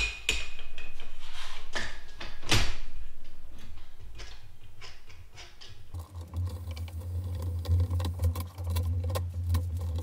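Handling noises and light metallic clinks as a steel wing rigging cable with swaged end fittings is fed over the wing tubes, loudest in the first few seconds. About six seconds in, a steady low hum starts beneath a run of small ticks.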